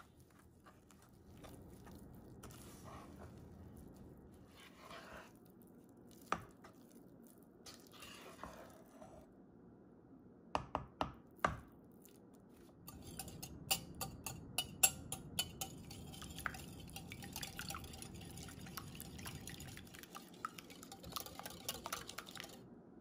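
Thick chocolate batter being stirred and scraped in a non-stick pot with a spoon and spatula, with a few sharp taps of the utensil against the pot partway through. Later comes a run of quick clicks that fits a wire whisk beating eggs in a glass bowl.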